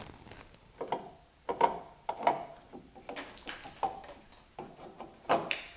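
A thermostat being worked loose from the water pump and pulled out from under the engine bay: irregular clunks, knocks and rubbing as the part scrapes past hoses and engine parts.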